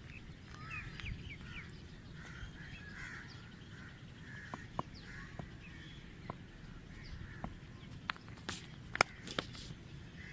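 Birds calling throughout. Light clicks come in the second half, and about nine seconds in there is one sharp crack of the cricket bat striking the ball.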